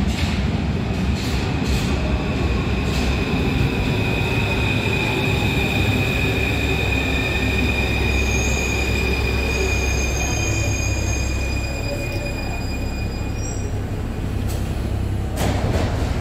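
Paris Métro line 5 MF01 steel-wheeled train pulling into a station and braking to a stop: a rumble of wheels on rails with a steady high squeal from the wheels and brakes, which dies away a few seconds before the end. There are a few clicks over rail joints in the first seconds and a brief hiss near the end.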